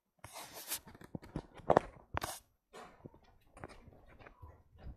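Handling noise from a phone being carried by hand: irregular rustles, knocks and clicks, the loudest knock a little under two seconds in.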